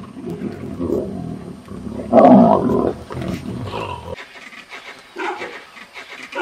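Vultures squabbling at a carcass: a dense, rough mass of low calls and scuffling, loudest about two seconds in. About four seconds in it cuts off abruptly to fainter, scattered higher calls.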